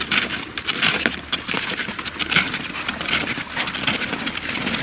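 Snowshoe footsteps crunching on packed snow in a steady walking rhythm, about two steps a second.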